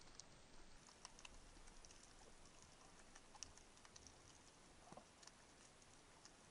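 Faint underwater crackle heard through a camera housing in shallow water: a soft hiss with scattered small clicks and ticks, one slightly louder about halfway through.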